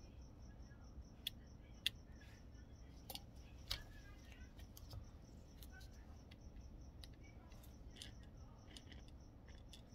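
Faint, scattered small clicks and taps from hands handling small parts, the sharpest in the first four seconds, over a faint high-pitched whine that pulses quickly.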